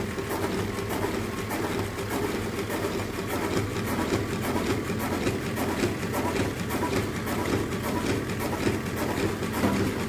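Automatic in-line liquid filling machine running, a steady mechanical hum with a regular click about three times a second.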